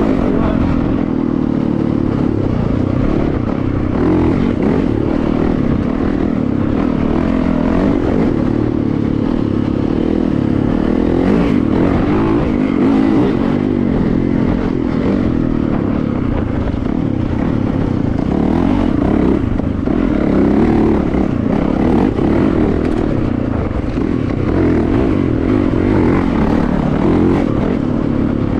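Yamaha YZ450FX dirt bike's single-cylinder four-stroke engine running hard on a trail, heard from the saddle, its pitch rising and falling with the throttle.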